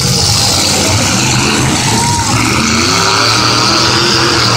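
Several demolition derby car engines running and revving together, loud and steady, with revs rising and falling.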